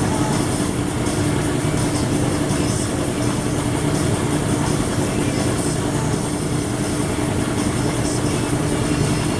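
A machine running steadily, a continuous drone with a constant hum and no change in pitch.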